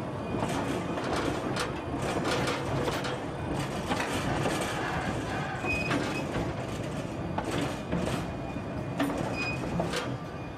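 Cumbres and Toltec narrow-gauge passenger car rolling on its wheels: a steady rumble with irregular clicks and knocks from the wheels on the rail. There are two short high squeaks, about six seconds in and again near the end.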